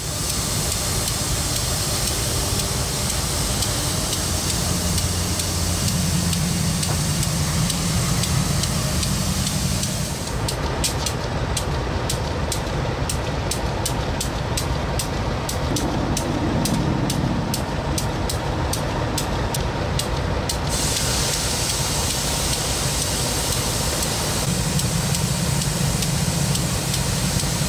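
Diesel freight locomotives idling, a steady engine rumble under a loud hiss. From about ten seconds in, a fast, even ticking of roughly three a second runs for about ten seconds, then stops.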